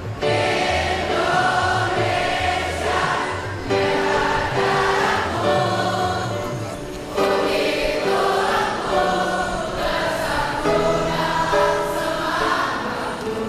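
Music: a choir singing a slow song, in phrases of about three and a half seconds each, over a low bass line.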